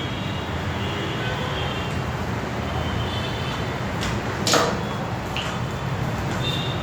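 Microscope LED ring light being handled and fitted onto the microscope: a few light clicks and one sharp plastic-and-metal clack about four and a half seconds in, over a steady low hum.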